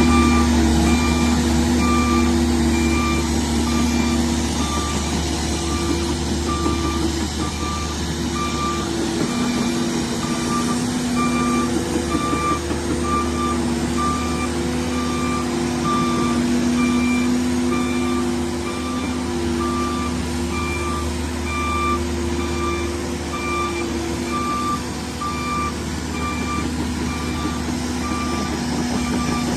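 Cat 308 mini excavator's diesel engine running under load with a steady drone, while its travel alarm beeps at an even, repeating rate throughout: the alarm that sounds while the machine is tracking.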